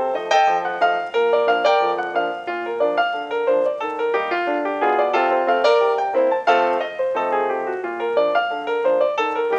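Upbeat solo piano music: a quick, lively tune of short struck notes.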